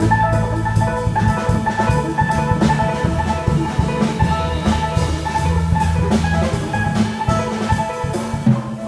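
Live jazz trio playing together: electric guitar picking a melodic line over a plucked upright double bass and a drum kit with cymbals, at a busy pace.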